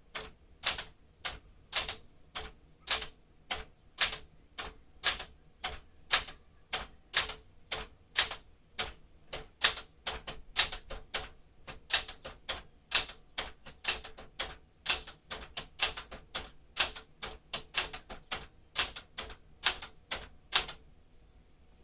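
1973 Smith-Corona Sterling manual portable typewriter typing a character test one key at a time: sharp typebar strikes about two a second, stopping near the end.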